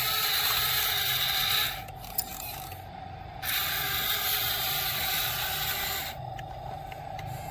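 Small electric gear motors of a radio-controlled toy excavator whirring in two runs of about two seconds each, with a steady hum underneath and a single click between them.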